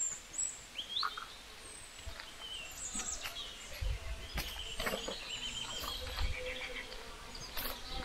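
Outdoor ambience of small birds chirping and calling, scattered short high calls, with a low rumble underneath from about halfway through.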